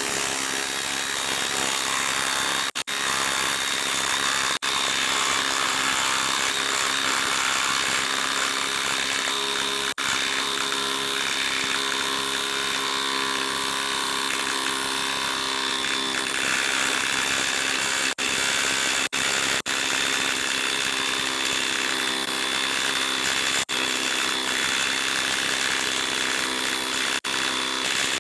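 DeWalt DCF887 impact driver hammering without let-up as it drives an 8-inch by 5/8-inch galvanized lag screw into a log through a socket adapter, under heavy load. The hammering breaks off for a moment a few times.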